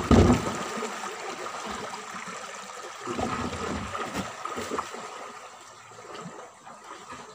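Shallow creek water splashing and trickling around a small boat as it is pushed and lifted over stones in the creek bed, opening with a thump and splash against the hull.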